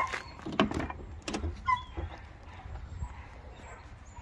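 Rear door of a 1986 Chevy Caprice being unlatched and swung open: a few sharp clicks and clunks from the handle and latch in the first two seconds.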